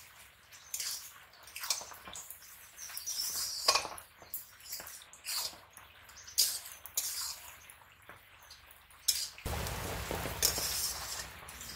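Steel spatula scraping and clinking against an iron karahi as red spinach and peanuts are stir-fried over an open fire, with light sizzling. A steadier hiss comes in for a couple of seconds near the end.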